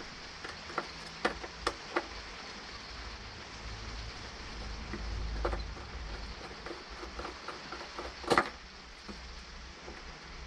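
Small clicks and knocks of a tool and cable lugs being worked at a 12-volt fuse block as the sensor's ground wire is fastened, a few in the first two seconds and a sharper knock about eight seconds in. A steady hiss of rain on the caravan runs underneath.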